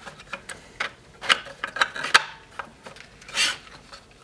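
Hard 3D-printed PLA plastic parts clicking and knocking as a snowmobile body shell is worked by hand around the chassis and transmission, with a short louder rasp of plastic rubbing a little past three seconds in.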